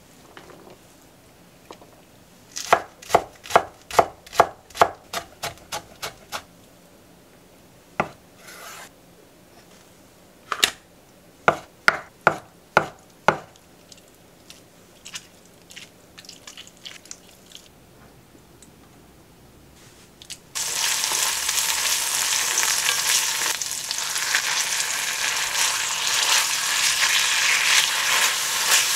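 A kitchen knife chopping on a wooden cutting board: a fast run of strikes at about three a second, then scattered strikes and another short run, then lighter taps. About twenty seconds in, ground beef starts sizzling loudly in a hot cast-iron pan and keeps sizzling as it is stirred.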